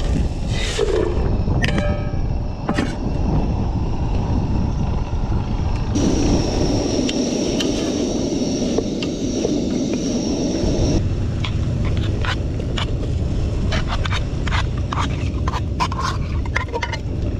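Potato strips and onions frying in a metal pot while a wooden spoon stirs and scrapes against the pot, with short knocks and scrapes coming thick in the second half, over a steady low rumble.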